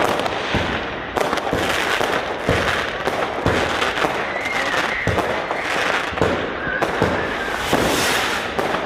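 Fireworks going off in quick succession: a steady run of sharp bangs, about one or two a second, over continuous crackling.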